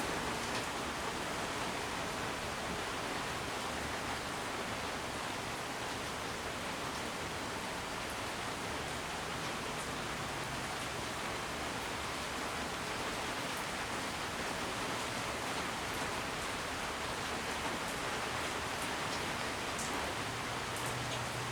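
56-inch Canarm industrial ceiling fan spinning down in reverse after being switched off, its blades moving air with a steady whoosh. A faint low hum comes in near the end.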